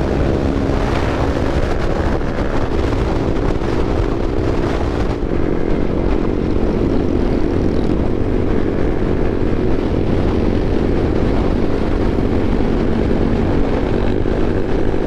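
Yamaha R15 V4's single-cylinder engine running at a steady high cruising speed, its pitch holding level, with wind rushing over the microphone.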